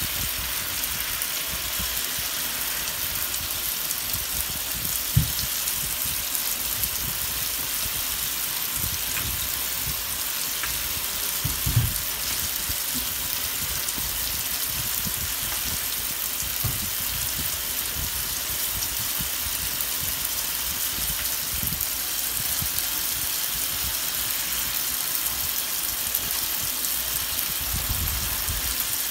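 Steady hiss of water running into a bathtub, with two dull thumps about five and twelve seconds in.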